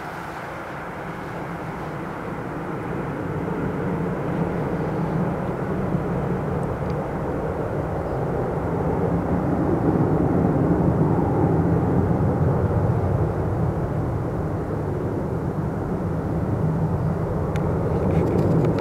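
Boeing airliner's jet engines running up: a steady low rushing rumble that grows louder over the first ten seconds and then holds.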